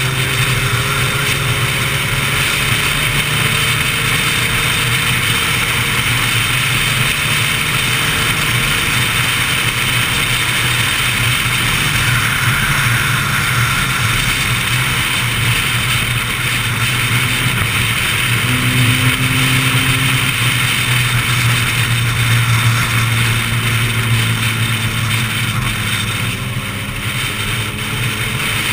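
Sport motorcycle ridden at speed, heard from a GoPro mounted on the bike: steady wind rush over a low engine drone whose pitch shifts a little now and then.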